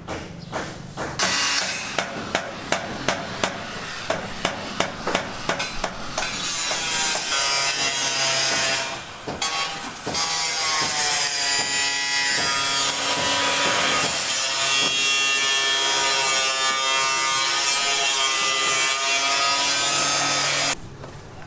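Sawing: a run of rhythmic strokes about two a second, then a long continuous cut with a whine that wavers in pitch, which stops suddenly near the end.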